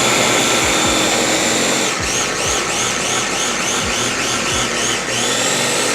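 Mini food processor motor running at full speed, grinding raw cauliflower into rice-sized bits: a steady high whine that, from about two seconds in, wavers up and down about four times a second as the pieces tumble against the blade. It stops near the end.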